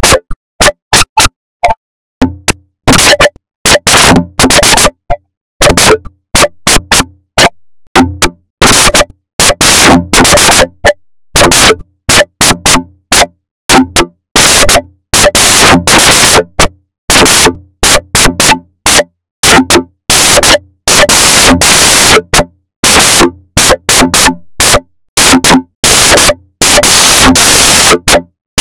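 Harsh, heavily distorted and digitally processed audio, clipped at full loudness, chopped into stuttering fragments that cut in and out several times a second. The fragments grow longer and denser toward the end. It is the kind of garbled, synthesizer-like cacophony produced by a '4ormulator' effects edit of cartoon logo sound.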